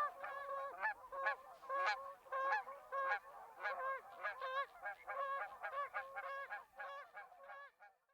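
Canada geese honking, a rapid series of short honks at about two or three a second, growing quieter toward the end and stopping just before it ends.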